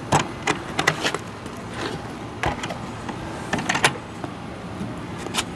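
Metal latches on a wooden military rifle crate being unclasped and the lid handled: a string of separate sharp clicks and clanks, several in the first second and a cluster near the end.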